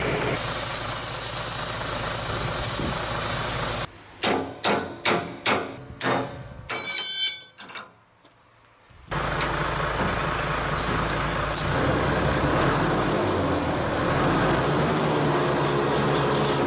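Truck engine idling with a high hiss over it, then, after a cut, about six sharp hammer blows on steel, roughly two a second, the last one ringing: knocking out door hinges. The idling resumes after a short near-silent gap.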